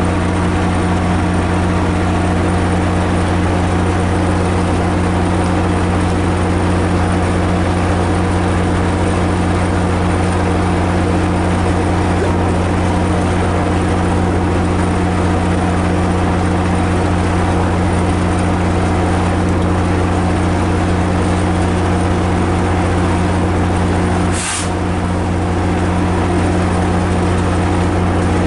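MARC MP36 diesel locomotive standing at the platform with its engine running at a steady, loud drone. A brief hiss cuts in about 24 seconds in.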